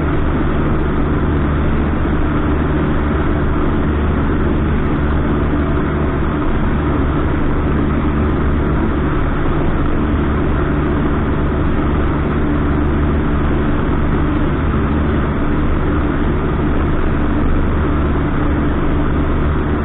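Cessna 152's four-cylinder Lycoming engine and propeller droning steadily in flight, heard inside the small cabin.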